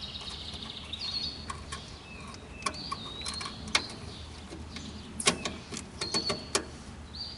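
Scattered sharp clicks and taps of metal tools and small parts being handled, the loudest a little under 4 seconds and just over 5 seconds in, with a quick run of them near the end. Birds chirp in the background with short, repeated high notes.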